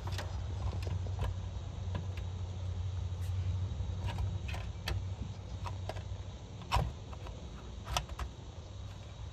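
Scattered small clicks and knocks of computer parts and power cables being handled as a video card is fitted, over a steady low hum.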